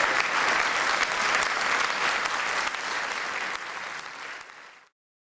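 Audience applauding, a dense, even clatter of many hands clapping that fades out near the end.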